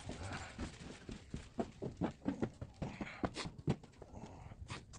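Footsteps of someone walking: a run of irregular knocks and scuffs, bunched between about one and a half and four seconds in, with a few more near the end.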